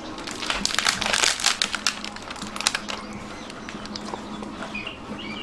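Dogs crunching biscuits: a dense run of quick crunches and clicks for the first few seconds, thinning out after.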